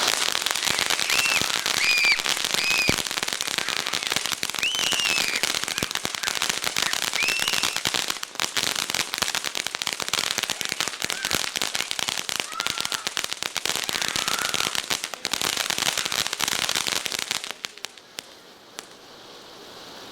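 Consumer ground firework crackling: a dense, rapid stream of sharp snaps and pops that goes on for about seventeen seconds and then stops.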